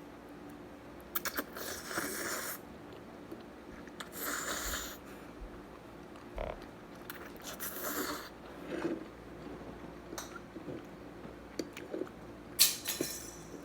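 A person eating noodles close to the microphone: chewing and eating noises in several short hissy bursts, with a few sharp clicks of a fork or utensil.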